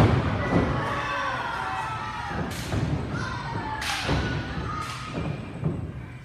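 A wrestler's body hitting the wrestling ring mat with a loud thud, the loudest sound here. Shouting follows, with three more sharp smacks spread through the next few seconds.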